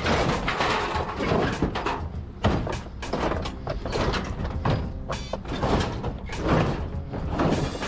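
Scrap metal clanking and scraping as pieces are dragged and dropped one after another, over a steady low rumble.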